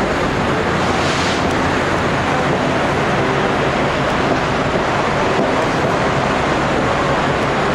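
Steady rushing noise of a moving train heard from an open car, with wind blowing on the microphone.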